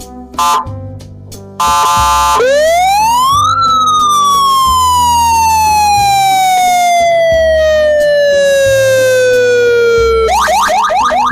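AS820 300W electronic car siren (RAB horn) sounding. It gives a brief steady tone, then a wail that rises for about a second and falls slowly for about seven seconds. Near the end it switches to a fast warble of about four rising sweeps a second.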